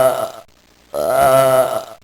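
A person yawning: drawn-out voiced yawns with a steady low pitch. One fades out about half a second in, and another starts about a second in and lasts about a second.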